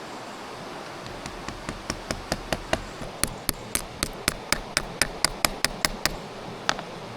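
A stone striking a coin to hammer it into the bark of a coin-tree trunk: a run of about twenty quick, sharp taps, roughly four a second, getting louder as they go, then one last tap a moment later.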